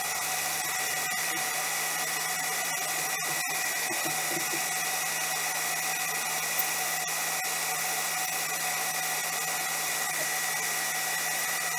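Metal lathe running steadily with a constant whine while the cutting tool turns down a brass workpiece.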